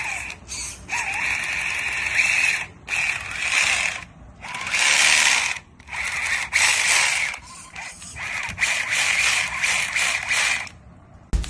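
Small electric motor and gears run in repeated short bursts of one to two seconds, with a ratcheting, gear-clicking sound. The source is plausibly the RC crawler's drivetrain being throttled on and off.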